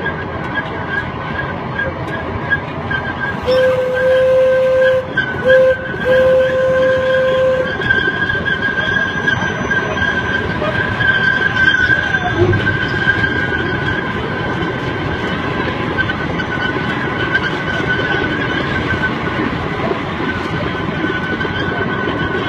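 A park ride train running on its track with a steady high whine over the rolling noise. A few seconds in, its horn sounds in three blasts, long, short and long, ending after about four seconds.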